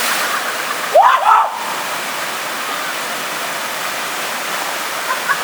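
Steady rush of water pouring down a rock cascade into a creek pool. About a second in, a person gives one short shout that rises in pitch.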